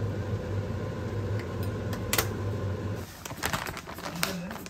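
Over a steady low hum at the stove, a spoon clinks once against a simmering stainless-steel stockpot. About three seconds in, the sound cuts to a knife chopping zucchini on a plastic cutting board: several quick strokes.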